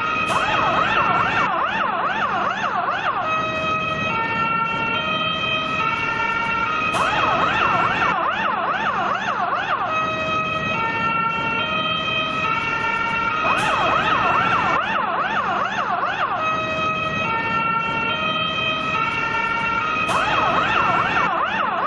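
Finnish fire engine siren sounding continuously. It switches back and forth between a fast warbling yelp of rapid rising and falling sweeps and a stepped pattern of alternating steady tones, changing about every three seconds. There is a short click each time the yelp starts.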